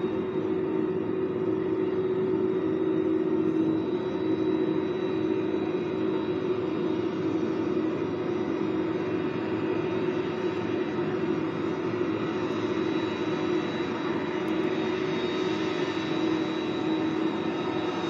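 Jet engines of an Airbus Beluga ST freighter running at taxi power: a steady drone with a constant high whine.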